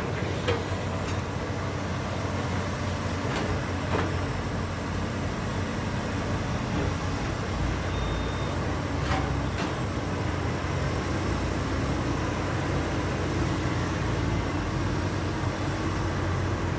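Heavy diesel machinery engine running steadily with a low rumble, with a few sharp knocks or clanks over it.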